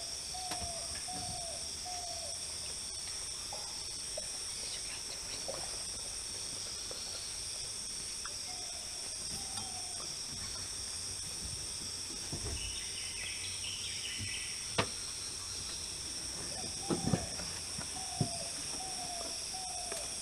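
Forest ambience: a steady high-pitched insect drone, with a bird repeating a short falling note about twice a second in several runs. A few sharp clicks come in the second half.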